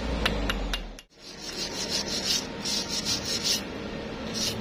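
A chipping hammer taps slag off a stick-weld bead on steel tube a few times. After a short break, a steel wire brush scrubs the bead clean in rapid rasping strokes.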